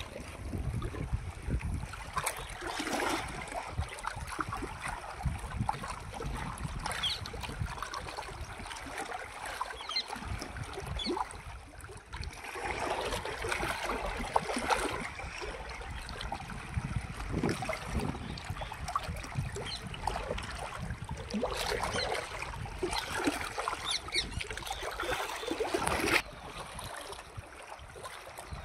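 Small waves lapping against the rocky shore, with wind buffeting the microphone as a low rumble. Close-up handling sounds come and go on top, small crackles and clicks from hands working damp groundbait onto the hook, and the sound drops suddenly a couple of seconds before the end.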